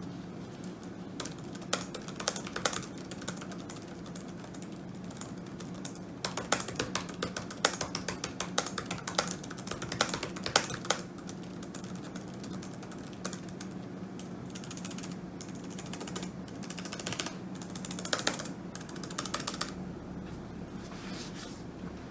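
Typing on a computer keyboard: rapid runs of key clicks in several bursts, the longest in the middle, with pauses between. A steady low hum of background noise runs underneath.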